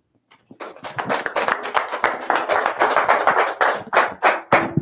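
A small group of people applauding, starting about half a second in and thinning out near the end.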